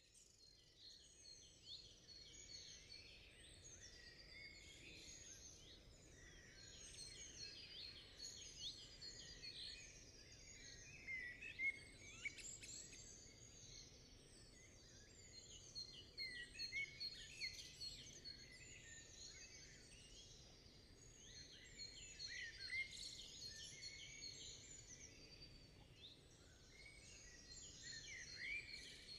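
Many birds chirping and calling at once, a dense, faint chorus of short overlapping calls.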